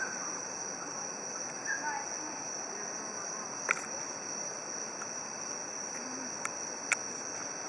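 Night insect chorus: a steady high-pitched drone of crickets, with a few sharp clicks.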